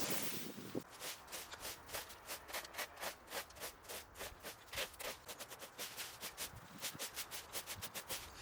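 A short rustle, then a hand pruning saw cutting through a branch in quick, even back-and-forth strokes, about four or five rasps a second.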